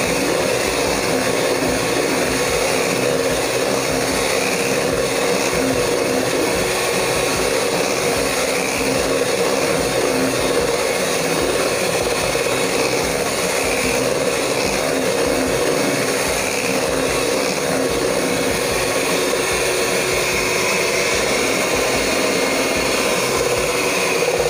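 Electric hand mixer running steadily, its beaters turning in thick cake batter in a bowl.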